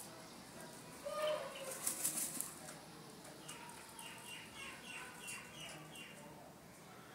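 Black francolin flapping its wings in the sand floor of its cage as it settles into a dust bath: a loud burst of flapping and scattered sand about a second in, then a run of softer, quicker rustles.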